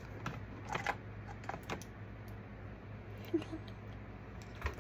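Scattered light clicks and taps of small plastic makeup containers being handled, at irregular moments, over a steady low hum.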